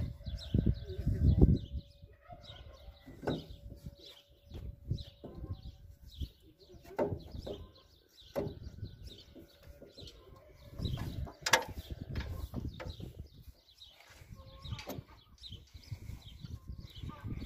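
Scattered clinks and knocks of a new water pump and its bolts being worked into place by hand on a Ford 3000 tractor engine, one louder clunk about two thirds of the way through. Birds chirp in the background.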